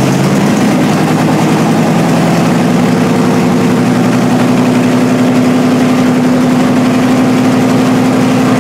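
Small-block Chevy V8 idling loudly and steadily just after starting. Its pitch rises a little in the first second, then holds even.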